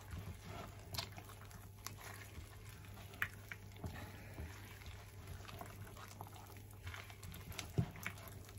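A gloved hand kneading and squeezing soft, wet glutinous rice flour dough in a stainless steel bowl: faint squelches and scattered soft clicks, over a steady low hum.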